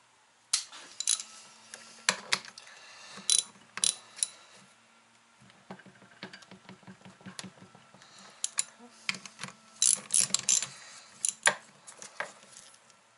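Socket ratchet clicking as the terminal nuts on a winch motor are snugged down, with sharp metal clinks of the socket and hardware. A run of quick, even ratchet clicks comes in the middle, and louder clinks come near the end.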